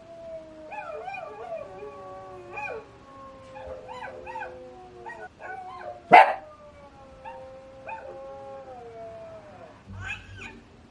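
Several canines howling together in long, overlapping calls that glide slowly down in pitch, a howling sound effect played through a small Bluetooth speaker. One loud, sharp sound stands out about six seconds in, and short yips come near the end.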